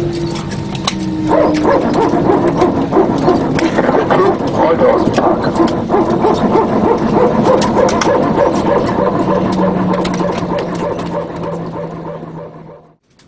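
Airliner cabin at the gate: many passengers' voices in a busy murmur, with frequent sharp clicks, over the aircraft's steady low hum. It all fades out near the end.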